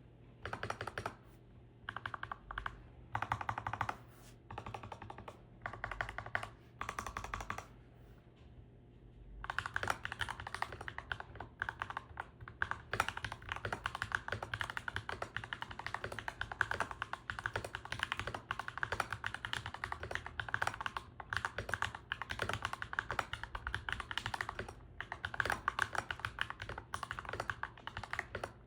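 Ajazz NK68 mechanical keyboard with lubed KBDiy Holy Panda tactile switches being typed on. Over the first nine seconds or so the keystrokes come in short bursts with pauses, then the typing runs fast and continuous.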